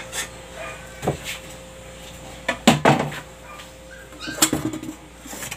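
Knocks and clatter of cookware being handled as a black frying pan is taken down from a shelf, with the loudest clatter about three seconds in and more near the end.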